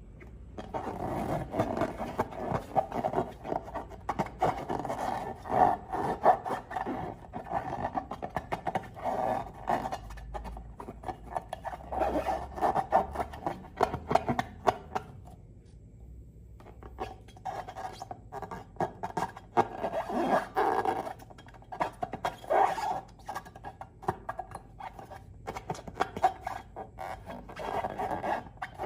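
Slime being mixed and squished: dense, irregular crackling and clicking, with a short lull about halfway through.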